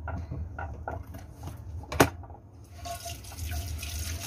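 A few light knocks and a sharp click, then about two and a half seconds in tap water starts running and splashing steadily into a nonstick frying pan in a stainless steel sink.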